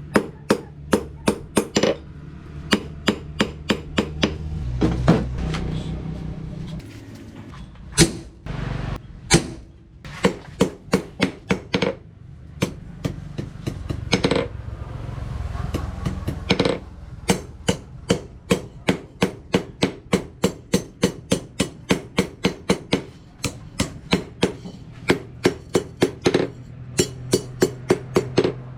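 Hand hammer striking hot rebar on an anvil: a steady run of ringing blows, about two or three a second, broken twice by short pauses.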